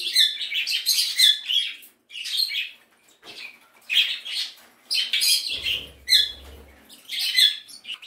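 Budgerigars chirping and chattering in short bursts, several times, with brief pauses between.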